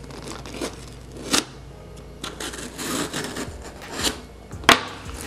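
A box being handled and pried at by hand: rubbing and scraping with a few sharp clicks and knocks.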